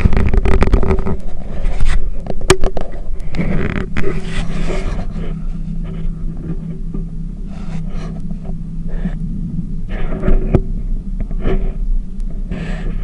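Tour boat's engine running steadily with a low hum, under rumbling noise on the action camera's microphone and scattered knocks.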